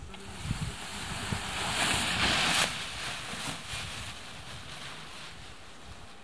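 Wind buffeting the microphone in gusts. The rushing noise builds to its loudest about two seconds in, drops off sharply, then settles to a lower steady blow.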